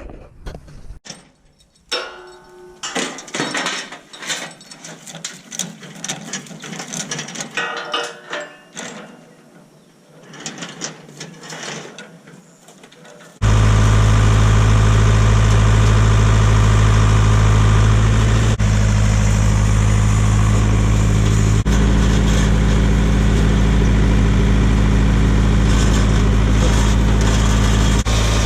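Irregular mechanical clicking and clattering. About halfway in, cut in suddenly, a tractor engine running loud and steady with a deep hum.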